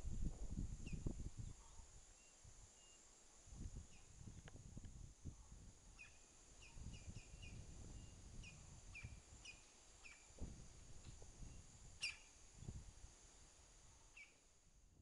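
Wind gusting on the microphone, with short high bird chirps repeated every second or so. A single sharp click near the end.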